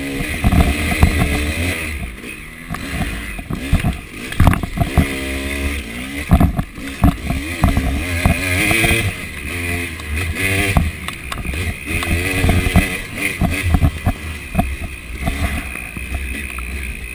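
KTM 300 two-stroke dirt bike ridden hard on a trail, the engine revving up and falling back again and again with the throttle, over a low wind rumble and sharp knocks from the bumps.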